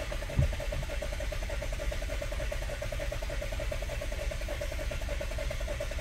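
A 2018 Chevy Malibu's four-cylinder engine cranking on the starter without catching, an even rhythmic chug of about eight beats a second: a crank-no-start.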